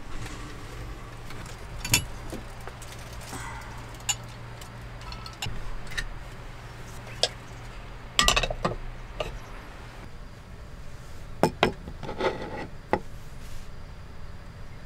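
Scattered clicks, knocks and metal clinks of camp cookware being handled and set down on a wooden table: a hot sandwich maker on a portable gas stove, a gas cartridge and a tin can. Clusters of clatter come just past halfway and again a few seconds later, over a low steady hum.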